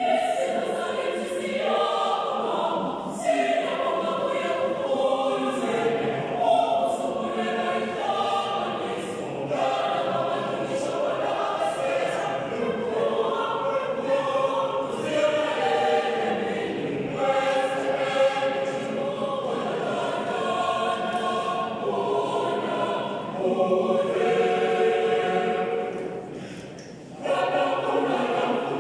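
High school choir singing. The singing starts abruptly, breaks off for about a second near the end, then resumes.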